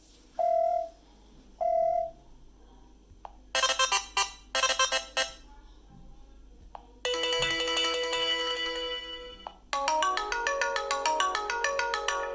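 BlackBerry Key2 stock ringtones and message tones playing one after another. Two short beeps come in the first two seconds, then a quick run of chiming notes about four to five seconds in. A held chord follows from about seven seconds, and a new melodic ringtone starts near the ten-second mark.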